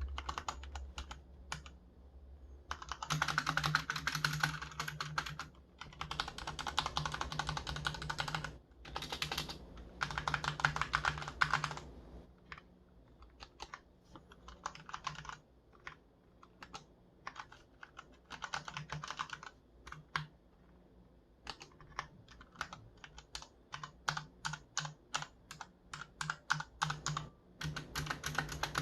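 Cherry MX Board 1.0 mechanical keyboard with Cherry MX Red linear switches being typed on: runs of fast typing alternate with slower, separate keystrokes.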